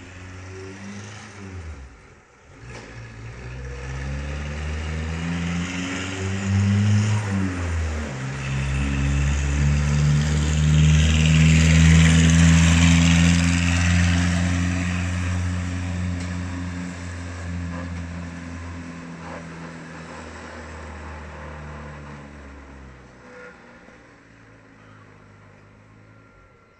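Small tractor's swapped-in 1.4 litre VW Polo diesel engine pulling a loaded log trailer as it drives past. Its pitch drops and climbs twice in the first eight seconds, then it runs steadily, loudest as it passes and fading away towards the end.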